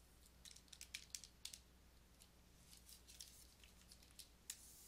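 Near-silent room tone with a scatter of faint, light clicks and scratchy ticks in two irregular clusters, the last click a little louder near the end.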